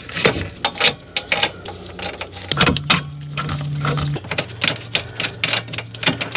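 Metal parts clinking and knocking as a drive axle is worked into the rear wheel hub: a quick, uneven series of clicks and knocks, with a low steady hum joining about two and a half seconds in.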